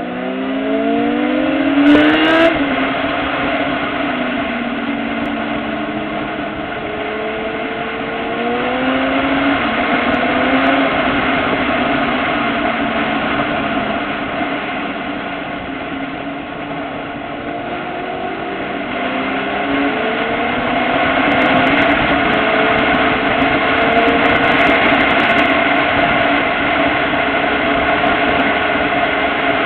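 Motorcycle engine heard from on the moving bike, climbing in pitch under acceleration for the first couple of seconds, then running on at road speed with its pitch rising and falling as the throttle changes, over a steady rush of wind and road noise.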